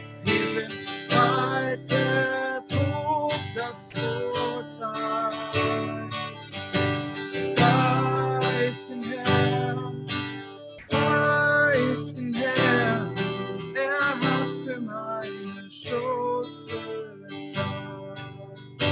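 Acoustic guitar strummed in a steady rhythm, accompanying a man singing a worship song.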